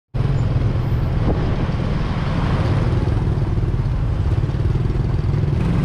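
Small motorbike engine running steadily while riding along, a continuous low rumble that starts abruptly right at the beginning.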